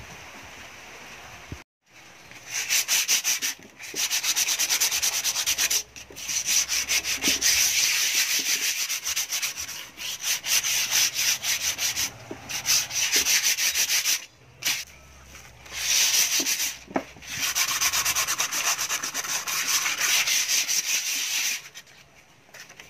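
Sandpaper rubbed by hand in fast back-and-forth strokes over a rusty perforated metal speaker grille, in several runs of a few seconds with short pauses between them.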